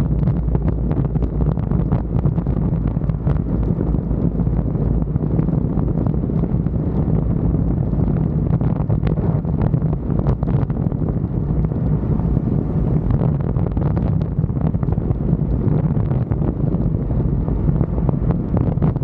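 Truck engine pulling steadily up a hill under load, running with a clean air filter, mixed with wind buffeting the microphone.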